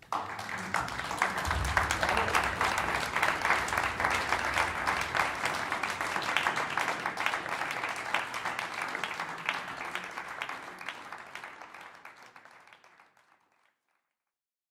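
Audience applauding after a piece ends, a dense patter of many clapping hands that starts at once, then fades out over the last few seconds.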